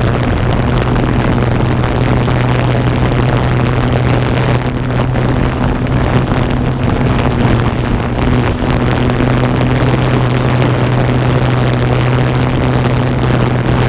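Multirotor camera drone's propellers and motors running steadily while it hovers: a constant low hum over a continuous hiss, heard close on the drone's own microphone.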